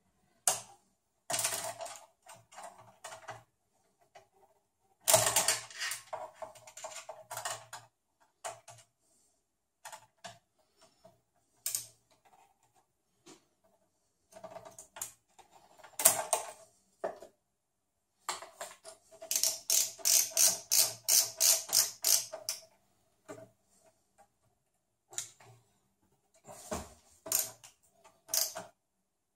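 Hand screwdriver turning screws into the metal chassis of a Sony VAIO VGX-XL computer: scattered clicks and scrapes of metal on metal, with a run of quick, even clicks lasting about three seconds near the middle.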